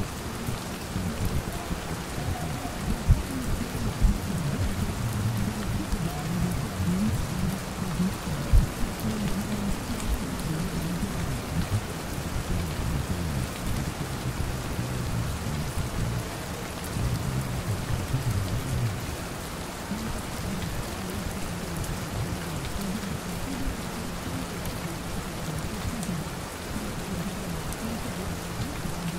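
Steady rain pattering on a window, under a low muffled rumble. Three sharp taps come within the first nine seconds or so.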